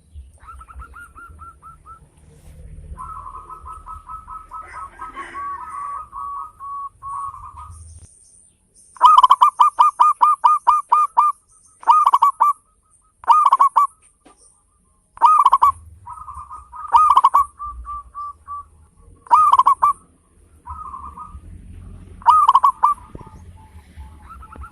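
Zebra dove (perkutut) cooing in rapid staccato phrases of quickly repeated notes. The calls are softer for the first eight seconds, then come as loud, short bursts every second or two.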